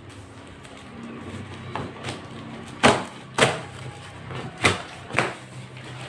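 Large cardboard shipping box being handled, its flaps bent and the box tugged. It gives a series of about five sharp cardboard scrapes and knocks, starting about two seconds in.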